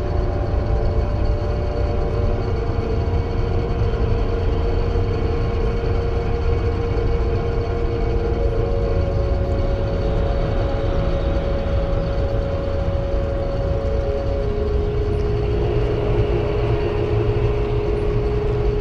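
Dark horror ambience: a constant deep rumble under held eerie tones that shift to a new pitch every few seconds.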